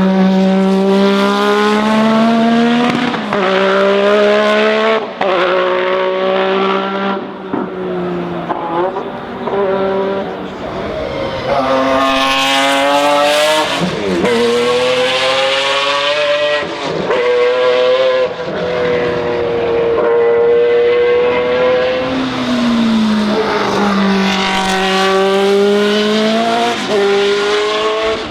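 Formula One racing cars running hard past on a hill climb, their high-revving engines climbing in pitch and dropping back at each gear change. Several cars come past one after another.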